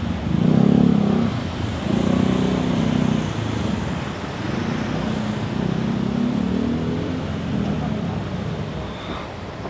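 Congested street traffic: cars creeping past close by, their engines making a low drone that swells three times over a steady street hum.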